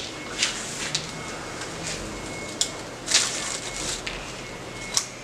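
Rosemary sprigs rustling and brushing as they are handled, in a series of short rustles with a couple of sharper clicks.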